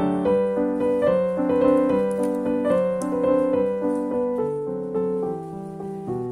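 Background piano music: a melody of successive notes that runs on under the scene.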